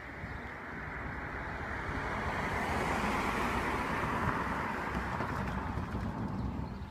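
A car driving past, its tyre and road noise swelling to a peak about halfway through and then fading.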